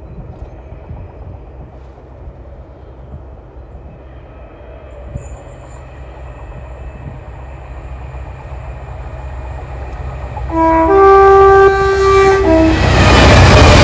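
Freightliner Class 66 diesel locomotive approaching with a container train, its low rumble growing steadily louder. About ten seconds in it sounds its two-tone horn: a short low note, a longer high note, then a short low note. Near the end the loud rush of the locomotive arriving at close range takes over.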